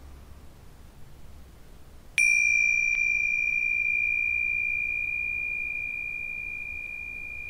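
Tingsha cymbals struck together about two seconds in, with a light second touch a moment later, ringing in one clear high tone that fades slowly. The chime marks the close of a silent meditation.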